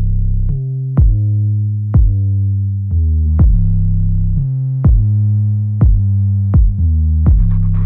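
Electronic background music with a steady drum-machine beat, a strike a little under every second, over a synthesizer bass line that steps between notes.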